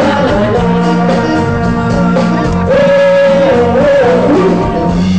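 Live rock band playing loudly with a lead singer over a steady bass line; about halfway through the singer holds a long, wavering note.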